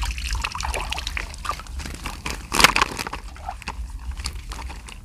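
Shallow seawater sloshing and splashing irregularly as fish are worked out of a fish corral, with one louder splash about two and a half seconds in, over a low steady rumble.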